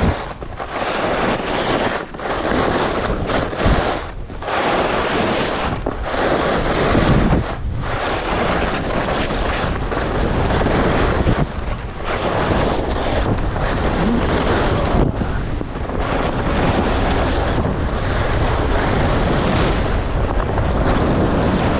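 Wind rushing over the microphone of a skier moving fast downhill, mixed with the hiss of skis on the snow. It swells and dips with the turns, dropping out briefly a few times in the first half.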